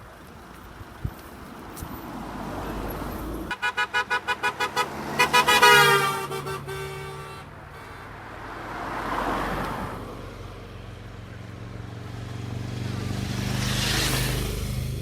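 A vehicle horn is sounded in a rapid string of short toots, about six a second, then in a few longer, louder blasts whose pitch drops slightly at the end. Afterwards two vehicles pass, each swelling up and fading away.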